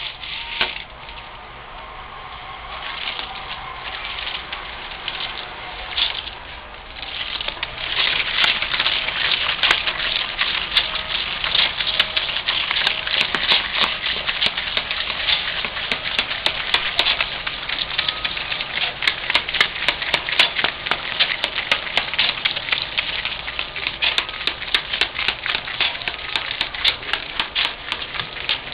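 A multi-pulley wheel machine runs while it pumps liquid through a tube into a plastic bottle. A fast, dense clicking and crackling sets in about seven seconds in and keeps up without a break.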